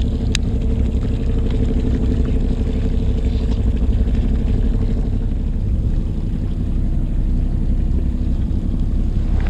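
Fishing boat's engine running steadily with a low drone, its note shifting lower a little over halfway through.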